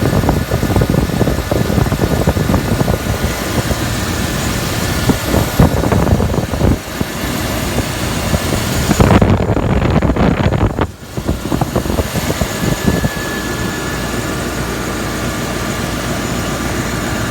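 Land Rover engine running with a newly replaced power steering pump making a weird noise: a steady low running sound with thin steady high tones over it. The sound dips briefly about two thirds of the way through, then settles into a steady run.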